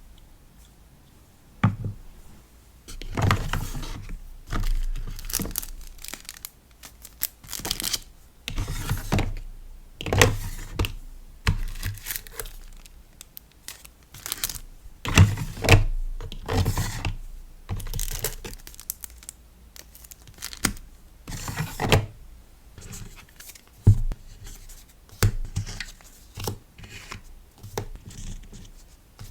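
Stickers and packaging being handled by hand: irregular rustling, crinkling and tearing of paper and plastic, with light taps and clicks between.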